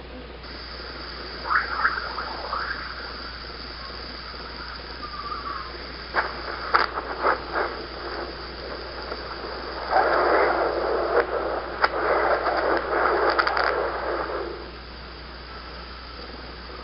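Radio-like static: a steady high whine with scattered crackles and sharp clicks, then a stretch of louder hissing static about ten seconds in that lasts roughly four seconds before dropping away.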